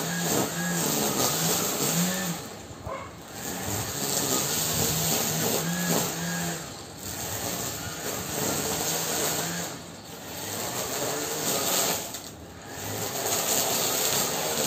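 Gardena electric string trimmer running and cutting grass. Its sound drops away briefly four times, around 3, 7, 10 and 12.5 seconds in, then comes back up.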